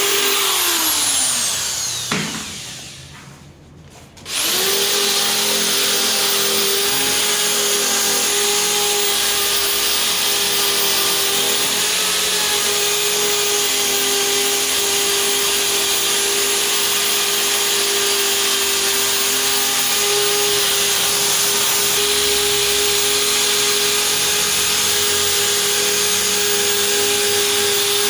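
Corded electric grinder with a wire brush wheel buffing tyre rubber. Its whine falls in pitch and dies away over the first two seconds, then it starts up again about four seconds in and runs steadily.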